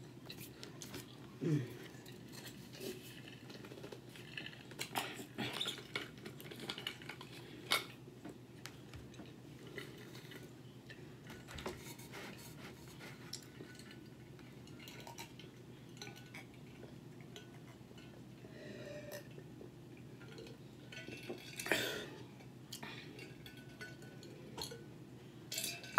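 Quiet eating sounds: a fork clinking and scraping on a plate, with chewing, as sharp scattered clicks, a few louder than the rest, over a steady low background hum.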